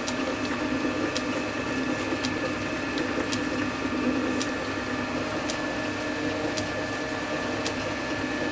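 Small metal-turning lathe running steadily with a hum, a light tick sounding about once a second as the chuck turns a brass spool valve.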